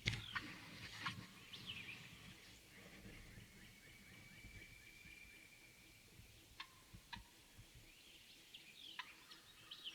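Faint woodland birdsong: several short down-slurred chirps and one long, even trill lasting a few seconds, with two sharp clicks just past the middle.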